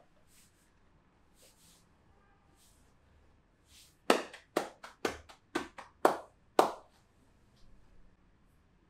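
A masseuse's hands striking in a quick run of about eight sharp slaps, starting about four seconds in and lasting under three seconds: percussive slapping or clapping strokes of a massage.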